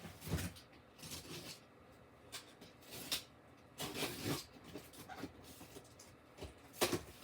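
Cardboard box and packaging being handled and opened: scattered rustles, scrapes and light knocks.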